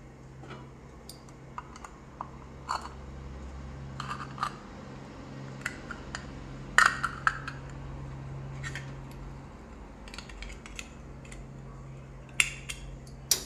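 Hand-held lever can opener biting into and cutting around the lid of a tin can: irregular metallic clicks and scrapes, the sharpest about halfway through and two more near the end.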